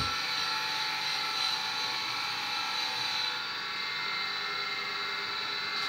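Steady mechanical hum with a few constant whining tones, even in level throughout, with no distinct knocks or clicks.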